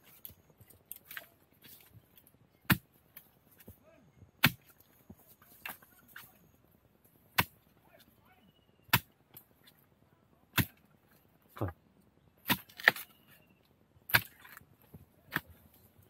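Long-handled digging spade chopping into the base of a bamboo clump to cut out a bamboo shoot: about a dozen sharp strikes, irregularly spaced one to two seconds apart.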